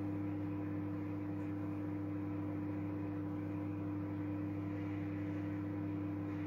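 Microwave oven running, a steady even hum with no breaks.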